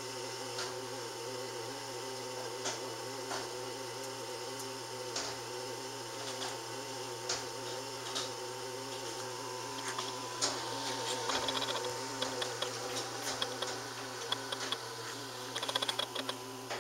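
Hardinge Omniturn gang-tool CNC lathe running with coolant spraying: a steady machine hum with scattered sharp ticks that come more often in the last few seconds.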